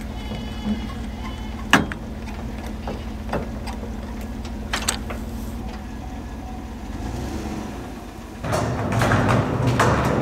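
Pickup truck engine idling steadily, with a few sharp metal clanks from the trailer coupler, jack and safety chains at the ball hitch. About eight and a half seconds in, this gives way to a louder rolling rumble with rattles as a wheeled diesel tank cart is pushed across a concrete floor.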